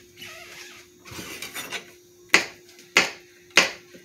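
Kitchen knife chopping food on a cutting board: some soft handling and scraping, then three sharp chops about two-thirds of a second apart in the second half.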